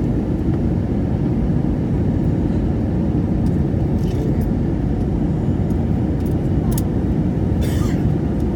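Steady airliner cabin noise: the low rumble of the engines and airflow heard inside the cabin at a window seat, with a short hiss near the end.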